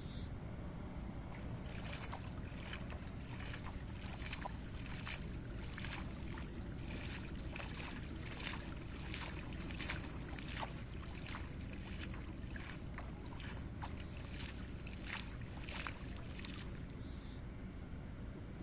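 Water splashing and sloshing as a fine-mesh hand scoop net is swept and worked through shallow pond water, in repeated splashes about two a second that stop near the end, over a steady low background noise.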